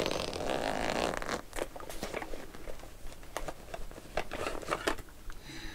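Zipper of a cosmetic pouch being pulled open in one continuous zip lasting about the first second and a half, followed by small clicks and rustles as a hand rummages inside the pouch.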